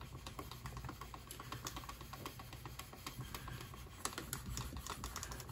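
Hand burnisher rubbed quickly back and forth along the edge of an elephant-skin and tooling-leather holster piece, heard as a faint, dense run of light ticks.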